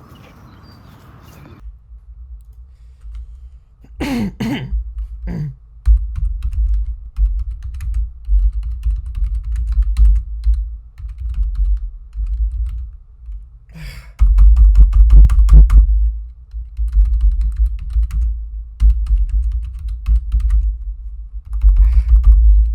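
Rapid, heavy typing on a computer keyboard: dense runs of clicking keystrokes with dull thuds underneath. A short squeaky sound comes about four seconds in, before the typing starts in earnest.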